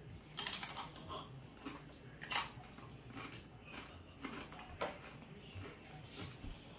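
Crisp crunching and chewing as the Paqui One Chip Challenge chip is bitten into, a few separate crunches with quieter chewing between them.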